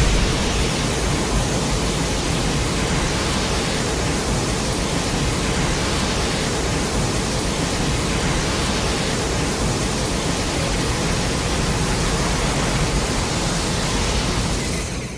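Steady, even rushing noise with no pitch, like static, loud through the low rumble and the high hiss alike, fading out at the very end.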